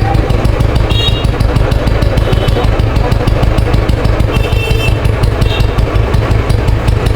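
Freshly restored Royal Enfield Bullet 350's cast-iron single-cylinder engine running steadily at idle, its exhaust giving a rapid, even thump.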